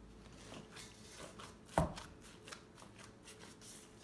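Hands in plastic food-prep gloves kneading bread dough in a stainless steel bowl: a run of short rustles and soft slaps, with one louder thump a little under two seconds in.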